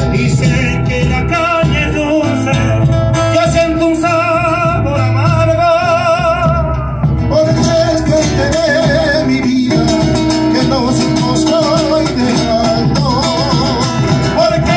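Live Argentine folk music: men singing with vibrato over strummed acoustic guitars and a bombo drum beaten with a stick.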